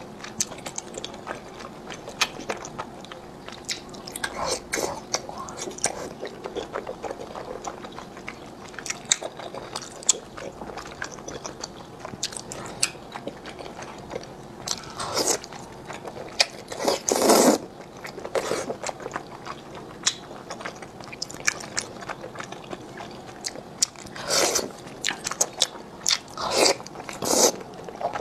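Close-miked chewing of thick, chewy starch noodles (fen haozi) in chili oil: a constant run of wet mouth clicks and smacks, with a few longer, louder slurps, the loudest about 17 seconds in.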